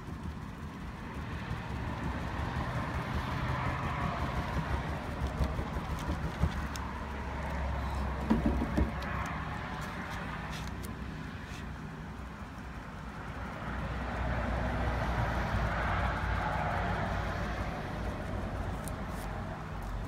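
Passing road traffic: a steady rush of vehicle noise that swells and fades in slow waves, over a low hum, with a few faint scattered taps.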